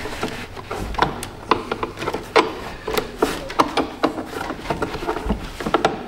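Battery hold-down bracket being worked loose by hand from under the engine-bay cowl: irregular clicks, knocks and scraping of hard plastic and metal parts rubbing together.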